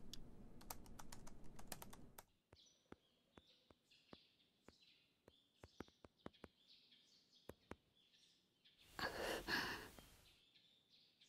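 Soft, irregular single key taps on a mobile phone as a message is typed, over faint high chirping in the background. Near the end, a short breathy rush of noise lasting about a second and a half.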